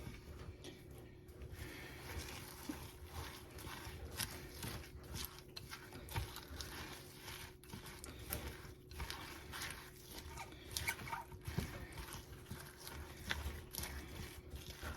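Spoon stirring a thick mix of melted chocolate and butterscotch with crushed potato chips and pecans in a bowl: irregular scrapes and light knocks, with a faint steady hum underneath.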